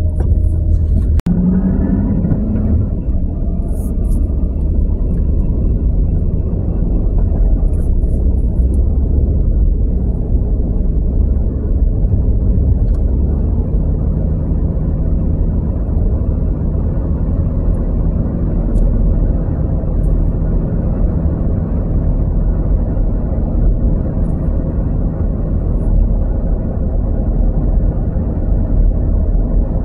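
Steady low road and engine rumble of a moving car, heard inside the cabin. There is a brief break in the sound about a second in.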